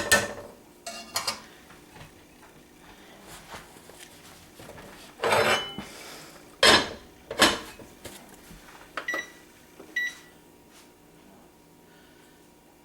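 Kitchen clatter: several sharp clanks of cookware and dishes being handled, then two short, high electronic beeps about a second apart, like an appliance's keypad.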